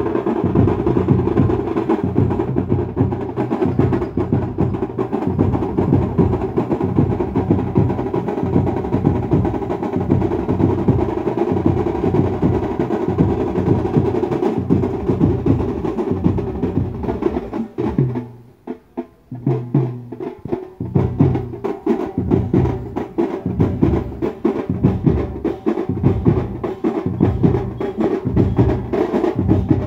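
Loud drum-heavy band music with a driving beat, played from a band truck fitted with horn loudspeakers. The drumming breaks off for about two seconds a little past the middle, then starts again.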